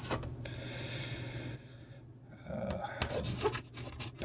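Pen writing on paper: a long scratchy stroke, a short pause, then a run of quicker short strokes and light taps as figures are written out.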